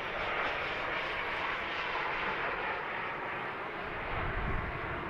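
A model jet's small turbine engine runs at low power as the jet rolls down the runway after touching down, making a steady rushing hiss. A low rumble swells briefly near the end.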